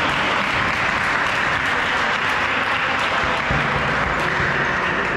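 Applause: many hands clapping steadily in a sports hall after a point is won in a volleyball rally.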